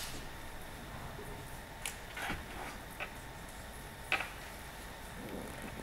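Faint room noise with a few short, sharp clicks or knocks, one at the start and others about two, three and four seconds in.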